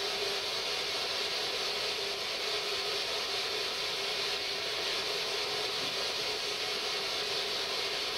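Ghost box sweeping through radio frequencies, giving a steady hiss of radio static with a faint steady tone beneath it.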